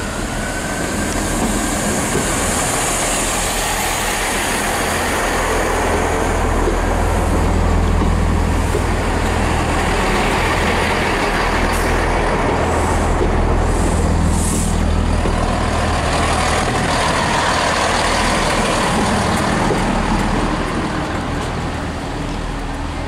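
Class 165 Networker Turbo diesel multiple unit running along the platform past the listener: a steady low diesel rumble with wheel and rail noise, fading near the end as it draws away.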